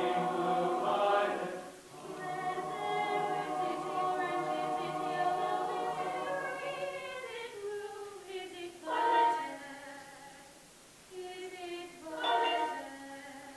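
Mixed choir singing slow, held chords. The sound dips briefly about two seconds in, then thins and grows quieter, with two short, louder choral entries later on, the second near the end.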